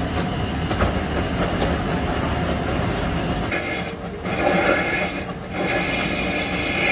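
Workshop machinery running with a loud, steady mechanical noise and a few clicks. About three and a half seconds in, the sound turns brighter, with steady high tones over the noise and two brief drops.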